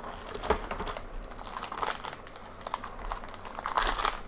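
A plastic Heroclix booster pack being crinkled and torn open by hand: a run of irregular crackles and clicks, busiest near the end.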